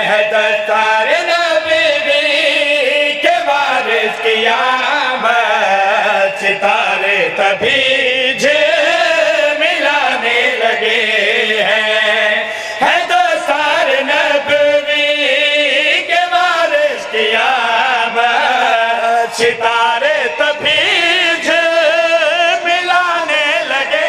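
A group of men chanting a Shia devotional qasida refrain together through handheld microphones and a PA system. They sing long melodic lines that rise and fall without pause.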